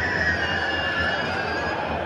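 Football stadium crowd noise: a dense, steady din of many supporters' voices, with a long high call sliding down in pitch over it.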